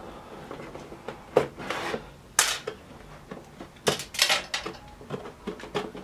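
A cardboard keyboard box being handled and shifted on a desk: a few scattered knocks and taps, with a short stretch of rubbing and scraping about four seconds in.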